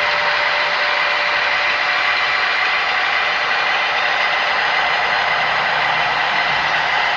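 Model freight train rolling steadily along the track: a continuous clattering rattle of boxcar wheels on rail.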